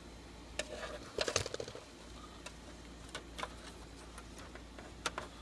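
Handling noise from a metal hard-drive bracket and its plastic cable connectors being fitted: scattered light clicks and taps, busiest a little over a second in.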